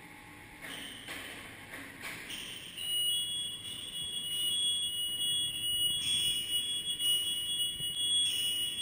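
A steady high-pitched electronic alarm tone sets in about two and a half seconds in, over faint background noise, and holds to the end with its level stepping up and down every couple of seconds.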